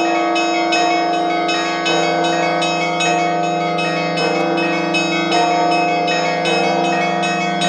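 Russian church bells rung together: small bells struck rapidly, about four strikes a second, over larger bells ringing on in low sustained tones, with a heavier low bell struck every couple of seconds.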